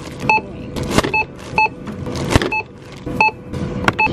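Supermarket checkout barcode scanner beeping about six times in short single beeps as groceries are scanned, with knocks of items set down on the steel counter. A steady motor hum from the checkout conveyor belt runs underneath.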